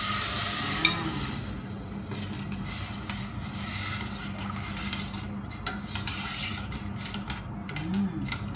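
Rice frying in a pan with ginger, sizzling while a utensil stirs and scrapes it against the pan, with scattered small clicks. A louder hiss comes in the first second or so.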